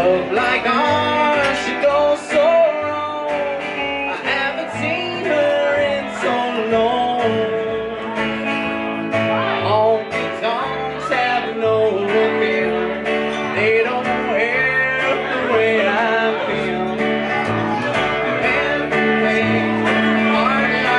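Live country band playing with no words sung: electric guitar, acoustic guitar and upright bass.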